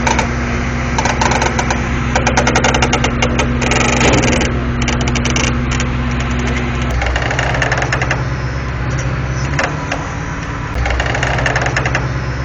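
A 90-ton mobile crane's engine running steadily under load, with loud creaking and grinding from its outriggers and chassis, in dense clusters during the first half. The creaking is the structure straining under a near-limit lift, a sign of severe instability.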